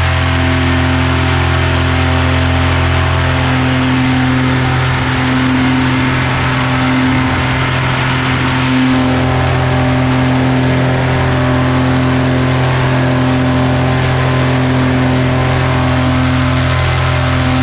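Paramotor engine and propeller running at steady power in flight, a loud, even drone.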